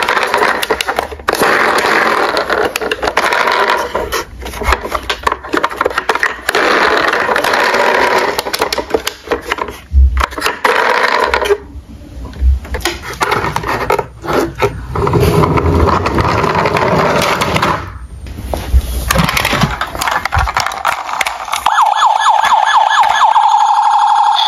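Tonka toy police cars playing their built-in electronic siren and sound effects through a small speaker, loud and crackly with a few brief pauses. About 22 seconds in, a cleaner, evenly warbling electronic siren starts as the dark Metro Police car's roof buttons are pressed.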